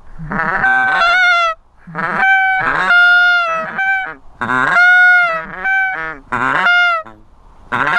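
A series of about five loud goose honks, each breaking from a short lower note up into a held, steady high note, repeated roughly every second and a half.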